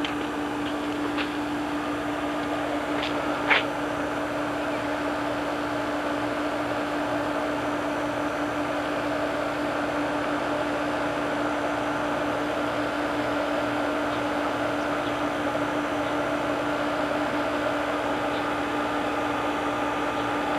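Steady hum and hiss, with one sharp click about three and a half seconds in.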